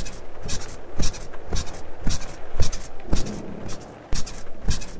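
Bed springs and mattress squeaking in a steady rhythm, about two squeaks a second, each with a low thump underneath.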